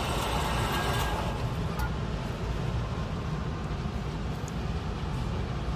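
Electric target retrieval carrier of an indoor shooting range running steadily along its overhead track as it pulls the paper target in, with a faint tick now and then.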